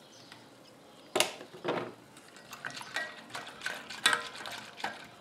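Silicone whisk stirring milk in a stainless steel saucepan. Irregular clicks and knocks of the whisk against the pot start about a second in, some with a brief metallic ring.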